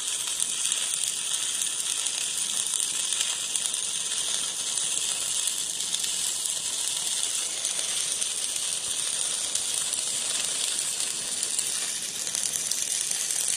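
Stick (MMA) welding arc burning a 4 mm electrode, giving a steady, even crackling hiss: the sign of a stable arc.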